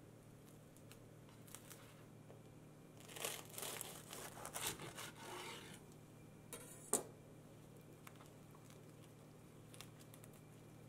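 Knife sawing through a ham sandwich on lightly toasted bread, the crust rasping in a run of strokes for about two and a half seconds, then a single sharp tap as the blade meets the wooden cutting board.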